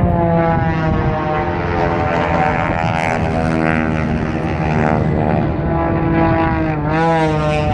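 Aerobatic biplane's piston engine and propeller running hard overhead, a steady buzzing drone. Near the end its pitch dips and comes back up as the plane manoeuvres.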